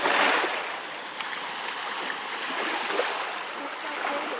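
Small waves washing in over sand and rocks at the water's edge: a surge of surf at the start, then a steady wash.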